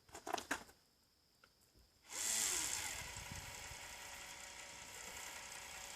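A few light clicks, then a small motor starts about two seconds in and runs steadily.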